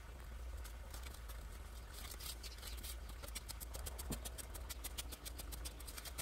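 Steel shovel digging into stony dirt: gritty scraping and crunching with many small clicks of stones, busier from about two seconds in, over a steady low rumble.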